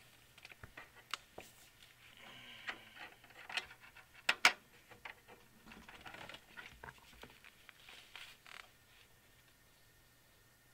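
Scattered clicks, taps and rustling of someone moving about and handling things close to the microphone, with two louder knocks about four seconds in; it quietens near the end.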